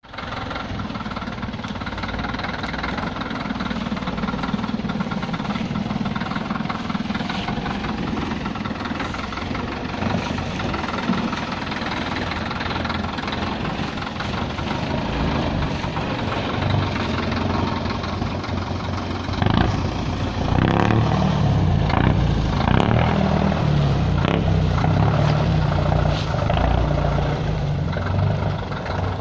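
Csepel D-344 off-road truck's diesel engine running as the truck drives over rough grassy ground, working harder and louder from about 20 seconds in.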